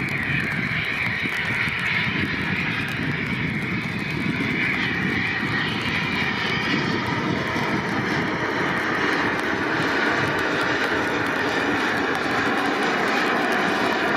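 Twin rear-mounted turbofan engines of a Cessna Citation business jet running at power as it rolls fast down a wet runway: a steady jet noise with a high whine, growing slightly louder.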